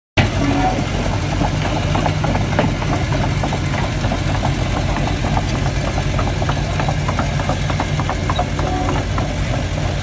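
Diesel engines of heavy earthmoving machinery (a tracked excavator and a road roller) running steadily at a low, even speed, with frequent light metallic clicks and rattles over the drone.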